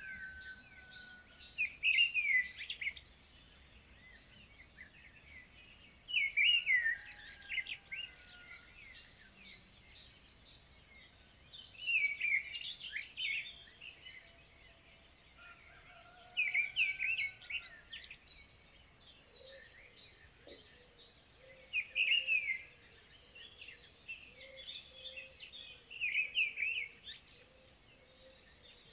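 Birds singing: short bursts of quick, high chirps that come back every four to five seconds, with faint steady whistled tones beneath.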